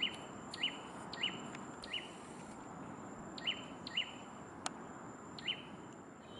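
A bird repeating a short, sharp call note, about one note every half second or so in a run at the start and then a few more spaced out, over a faint steady high thin tone and outdoor hiss; a single sharp click near the end.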